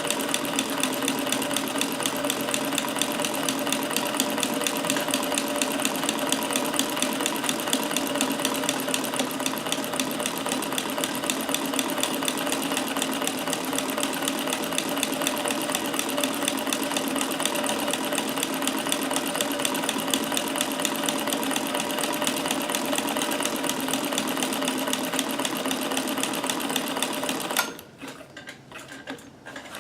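Davis Vertical Feed sewing machine running steadily at speed with a ruffler attachment fitted, a fast even clatter of stitching as the fabric is gathered into a double ruffle. It stops abruptly near the end, leaving a few light clicks.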